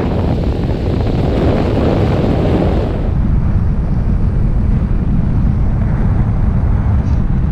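Wind buffeting a paraglider pilot's camera microphone in flight: a loud rushing noise that drops to a lower rumble about three seconds in.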